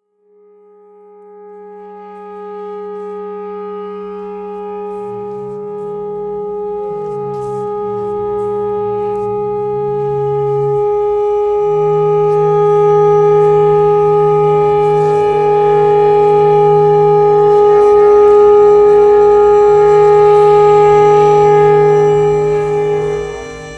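Woodwinds (clarinet, alto saxophone and alto clarinet) improvising: one long held high note over a lower line that moves between a few pitches. The sound swells slowly from quiet to loud and drops away near the end.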